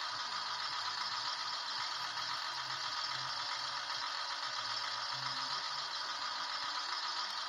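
Motorised crane of a Märklin H0 Robel track-maintenance vehicle model running as its arm lifts: a steady mechanical noise with an uneven low pulsing underneath.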